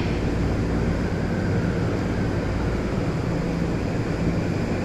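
Steady low rumble and hum of a JR 209 series electric train at the station, with no sharp events.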